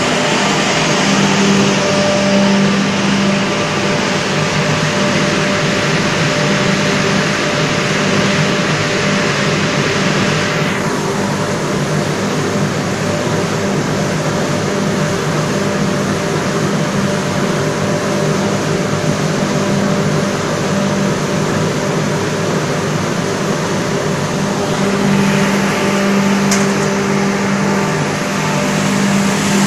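Automatic wet blasting machine running: a steady hiss of water-and-abrasive slurry spraying inside the cabinet over a constant machine hum. The hiss drops lower about a third of the way in and comes back up near the end.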